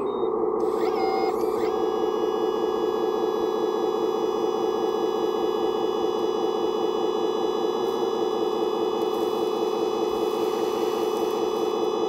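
Radio-controlled 1/14-scale Volvo articulated dump truck raising its loaded tipper bed. A steady high whine from the tipping mechanism, made of several steady tones, starts about a second and a half in and holds while the bed rises. Under it runs a constant hum from the model's engine sound.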